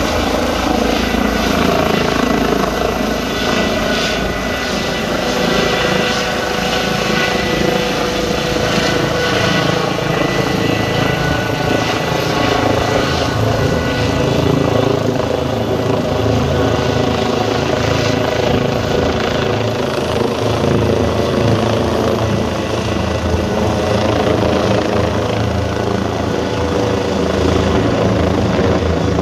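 Eurocopter EC135 helicopter climbing overhead just after lift-off, its main rotor and twin turbine engines running steadily at takeoff power with a thin, steady high whine.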